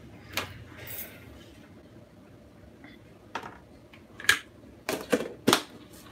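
Kitchen dishes and utensils clinking and knocking as a meal is plated: scattered sharp clinks, with a quick run of them near the end.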